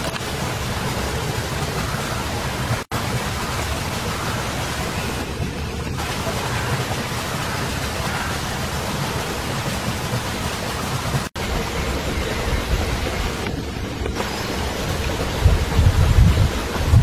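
Wind buffeting the microphone: a steady hiss with low rumbling gusts that grow stronger near the end. The sound cuts out for an instant twice.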